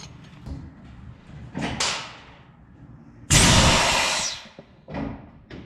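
Air brakes on a 1983 Peterbilt 359 being applied, with hissing compressed air. A softer hiss comes near two seconds in, then a loud, sudden burst of air about three seconds in that lasts about a second and fades, and a shorter puff near the end.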